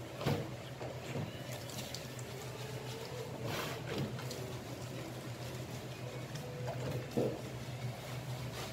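Soft wet squishing of hands working shampoo lather into a wet Siberian husky's coat, with a few short rustling touches and a steady low hum underneath.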